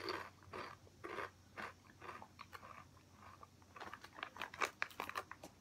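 A mouthful of Tortrix corn chips being crunched and chewed: a run of irregular crunches that gets busier near the end.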